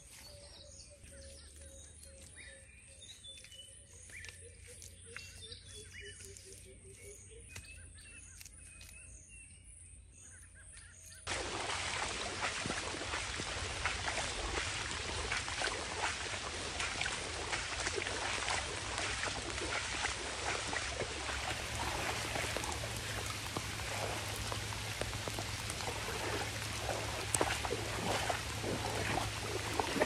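Birds chirp faintly over a quiet outdoor background with a fast, high ticking. About eleven seconds in, this cuts abruptly to heavy rain falling steadily and splashing on standing floodwater, much louder, which continues to the end.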